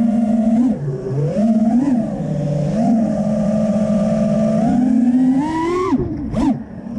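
FPV freestyle quadcopter's brushless motors and propellers whining, the pitch rising and falling with the throttle. Near the end the whine drops sharply, then climbs straight back up.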